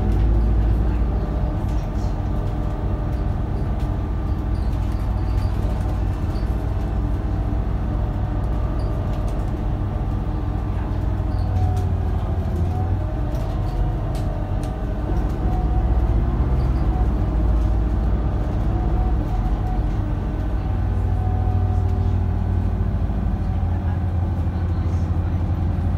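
Volvo B7RLE bus's six-cylinder diesel engine and ZF Ecolife automatic gearbox heard from inside the cabin while under way: a steady low drone whose pitch rises and falls as the bus pulls away and changes gear, with road and body rattle.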